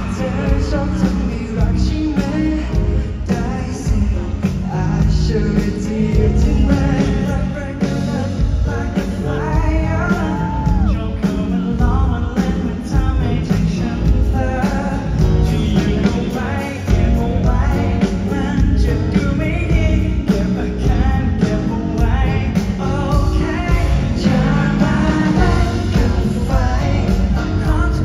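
Live band playing a pop-rock song with a man singing lead into a handheld microphone, heard through the arena PA from the audience.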